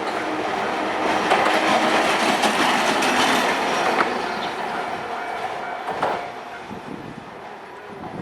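Hankai Tramway tram passing over a level crossing: wheels running on the rails with sharp knocks at the joints. It is loudest from about one to four seconds in, then fades as it pulls away. A steady crossing-bell tone rings behind it.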